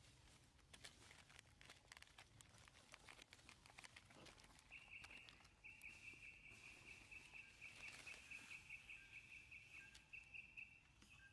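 Faint, high-pitched, fast-pulsing animal trill held at one pitch. It sets in about five seconds in with a brief break soon after, over light rustling and scattered clicks.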